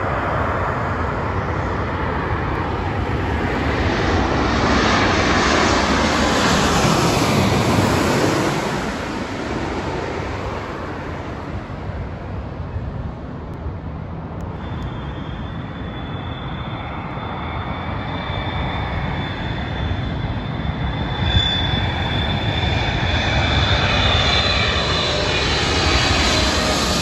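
Jet airliners on final approach passing low overhead. The first jet's engine noise is loudest a few seconds in and falls in pitch as it passes. From about halfway through, a twin-engine widebody's high fan whine builds as it comes in low toward the end.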